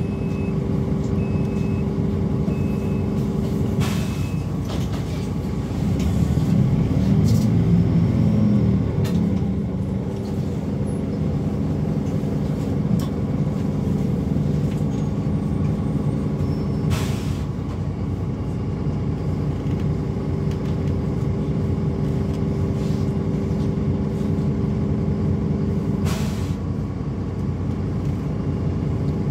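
City bus heard from inside the passenger cabin: the engine runs steadily, its note rising and swelling for a few seconds from about six seconds in, then settling again. A string of short high beeps sounds during the first four seconds, and a few sharp clicks come at intervals.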